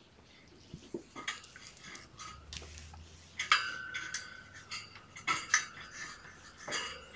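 A series of sharp clinks and rattles like dishes or metal knocking together, the loudest about three and a half seconds in with a brief ringing tone after it, and a few more near the end.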